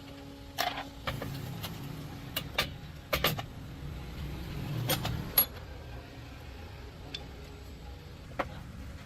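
Workshop handwork on metal parts: a series of separate sharp knocks and clicks over a low rumble that swells around the middle.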